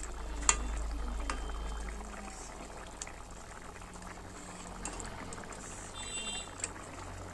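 Thick curry gravy of taro, potatoes and prawns bubbling at a simmer in a kadai, a steady burble with a few light sharp clicks scattered through it.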